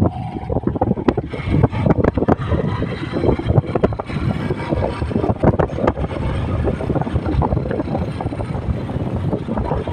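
Motorcycle riding along a rough concrete road: engine running under a gusty, uneven rumble of wind buffeting the microphone.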